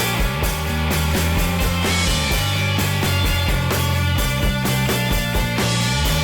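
Background rock music with electric guitar, bass and drums at a steady beat.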